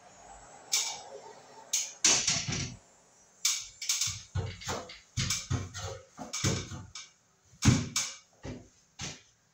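Irregular knocks, clicks and clatters as a ceiling fan electrical box is handled and fitted up into place against the ceiling; the loudest knock comes about three quarters of the way through.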